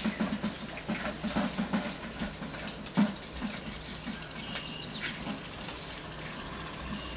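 An old bicycle rattling and clicking as it rides away, fading into scattered soft taps, with one sharper knock about three seconds in, over a steady low hum.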